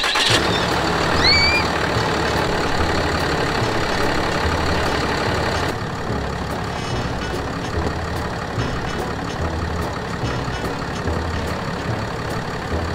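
A 2012 Ram 3500's 6.7-litre Cummins inline-six turbo diesel idling steadily with a low, even rumble.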